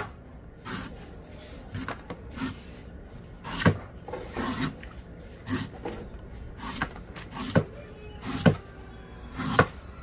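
A large kitchen knife cutting and shaving the husk of a young coconut: sharp chops, and the knife knocking on the wooden board, come about once a second at an uneven pace, with the soft scrape of the husk fibre between them.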